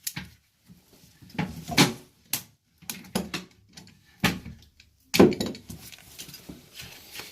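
Metal hand tools clinking and clanking as they are picked up and handled, a series of separate sharp knocks several times over.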